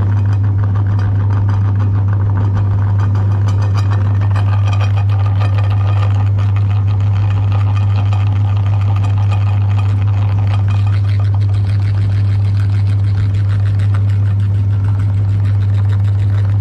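Electric meat grinder motor running steadily with a strong, even low hum.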